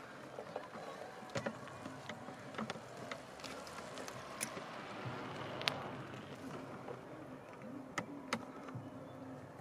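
Scattered clicks, ticks and rustles of a landing net's mesh and frame as a barbel is handled in it, over a low steady outdoor background.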